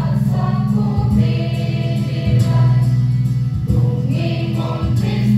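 Mixed choir of men and women singing a hymn.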